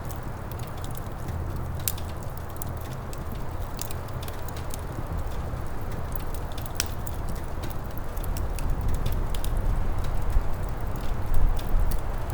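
Wood fire crackling, with irregular sharp pops and snaps over a steady low rumble that grows slowly louder toward the end.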